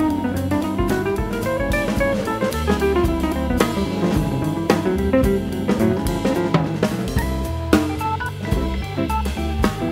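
Background music with a drum kit keeping a steady beat under a melody.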